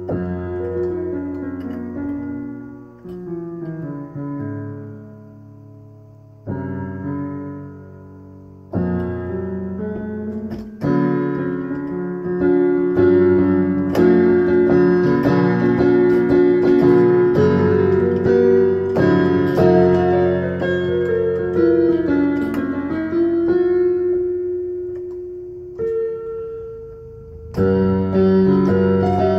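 Piano music with chords that ring and fade. It is sparse and quieter at first, then grows fuller and louder about a third of the way in.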